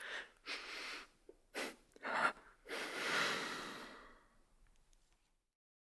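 A woman crying, heard as ragged breathing: four short, uneven breaths in quick succession, then one longer breath that trails off.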